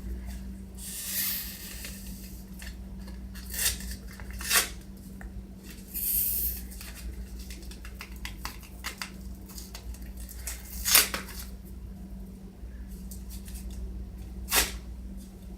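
Items and packaging being handled: two short rustles and several sharp clicks and taps, over a steady low hum.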